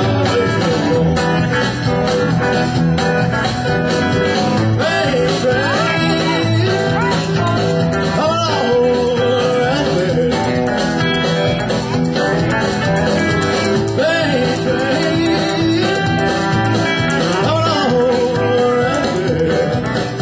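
Live music with guitar to the fore over a pulsing bass line, the lead part sliding and bending notes in a blues or rockabilly style.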